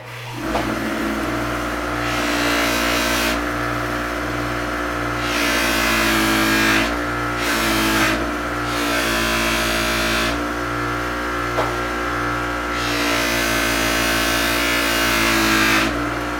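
Electric grinder motor running steadily, with a loud grinding hiss of steel against the abrasive that comes and goes about four times as the blade is pressed on and lifted off.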